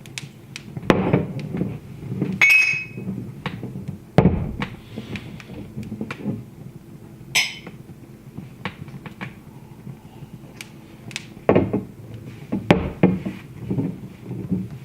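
Wood fire crackling, with scattered sharp pops and a few heavier knocks. Two brief ringing high tones also sound, about two and a half and seven seconds in.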